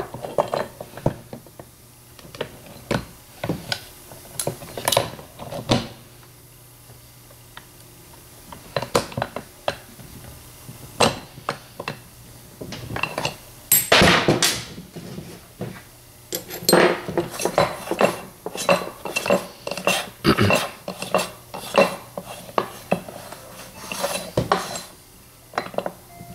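Steel gears and shafts of a Peerless riding-mower transmission clinking and knocking as they are handled and fitted into the open gearcase: irregular sharp metallic clinks, with a quieter stretch about seven seconds in and busier clatter in the second half.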